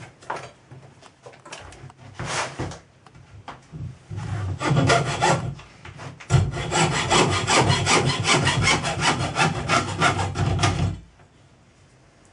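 Hacksaw cutting through brass sheet, a fast run of rasping back-and-forth strokes that starts about four seconds in and stops shortly before the end, with a few handling knocks before it.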